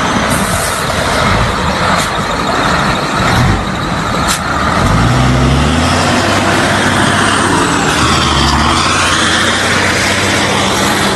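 FNM (Alfa Romeo) truck's diesel engine running under way, its pitch rising about five seconds in as it picks up revs, with a few short air hisses in the first few seconds.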